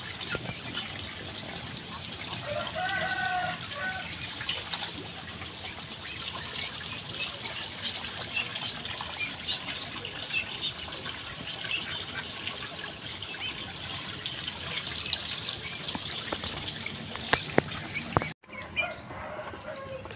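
Water trickling at a spring-fed pool, with poultry around: a short fowl call about three seconds in, and a couple of sharp clicks near the end.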